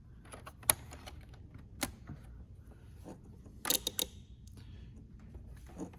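Small sharp plastic clicks and taps from a fuse puller gripping and pulling a 20 amp fuse out of a Jeep Wrangler JK's underhood fuse box: single clicks about a second apart, then a quick cluster of clicks a little past halfway.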